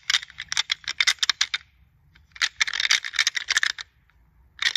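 Knight & Hale Pack Rack plastic deer-rattling device, its two ridged sections clashed and ground together by hand in quick runs of sharp clicks that imitate the clatter of buck antlers. Two rattling sequences of about a second and a half each with a short pause between, and a third beginning near the end.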